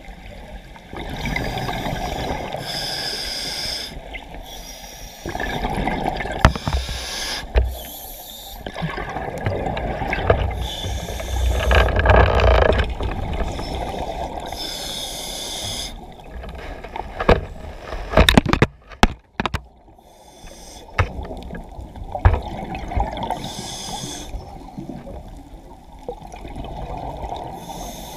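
Water sloshing and gurgling around a diving camera, with a diver's breathing coming in repeated surges a second or a few seconds long. A few sharp knocks come about two-thirds of the way through.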